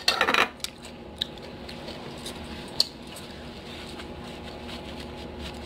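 Small eating and handling noises: a short cluster of mouth and hand sounds at the start, then a few sparse light clicks over a low steady hum.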